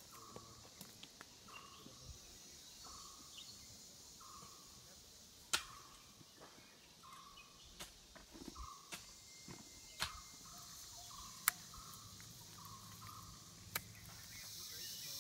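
Rural outdoor ambience: a steady high insect hiss, with a short falling call repeated about every three-quarters of a second until near the end. A few sharp knocks are the loudest sounds.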